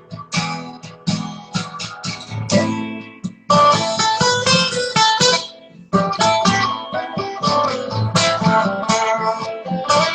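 Guitar playing an instrumental passage of a worship song: picked notes and strummed chords, with two short breaks about three and a half and six seconds in.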